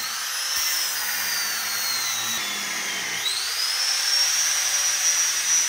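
Angle grinder with a thin cut-off wheel running at a high whine on a motorcycle frame. Its pitch sags slowly as the wheel is loaded into the metal, then climbs quickly back to full speed about three seconds in as the load comes off.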